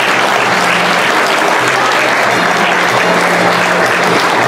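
Audience applauding steadily, a dense even clapping throughout.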